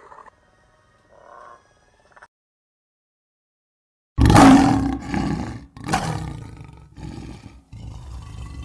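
Dinosaur roar sound effect: after a few faint short sounds and about two seconds of silence, a loud roar starts about four seconds in and goes on in four long surges with brief breaks between them.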